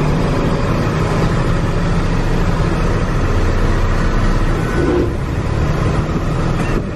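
Delivery truck's engine and road noise heard from inside the cab while driving: a steady low engine hum under the rush of tyres and wind.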